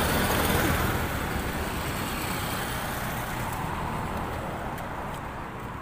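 Road traffic: a motor vehicle passing on the road, its noise fading away over a few seconds. A few faint ticks near the end.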